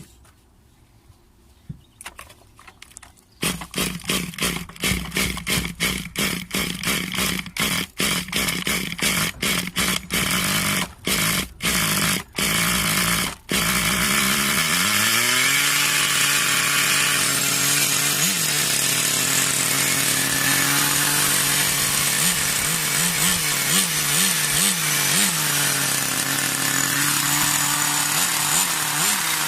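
Nitro RC car engine being started: choppy bursts of cranking and firing with short gaps, then it catches about 14 seconds in and runs steadily at idle, with a few brief blips of throttle near the end.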